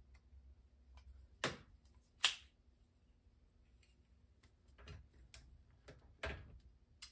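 A few sharp metallic clicks and taps of pliers being handled and worked on the engine, spaced out with quiet between.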